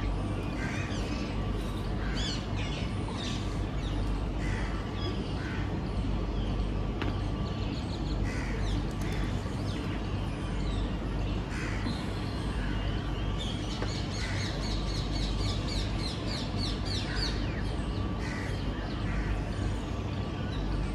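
Crows cawing again and again, with other birds chirping. A fast run of higher chirps comes about two-thirds of the way through. A steady low rumble runs underneath.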